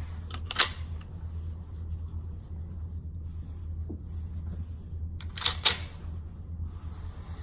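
Two pairs of sharp metallic clicks from a Taurus G2C 9mm pistol being handled and loaded: one pair about half a second in, a louder pair near 5.5 seconds. A steady low hum runs underneath.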